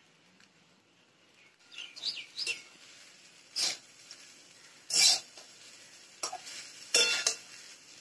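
A metal spatula stirring cooked flattened-rice pulao in a steel pot, knocking against the pot's side in three loud clanks a second or two apart. Small birds chirp in between.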